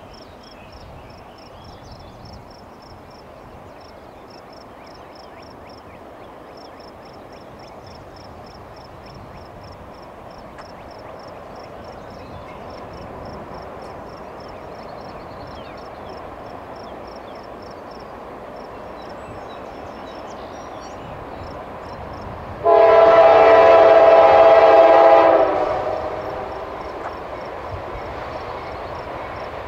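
Approaching CSX diesel-hauled freight train, its engine and wheel rumble slowly growing louder, then one long blast of the locomotive's multi-note air horn, about two and a half seconds long, near the end.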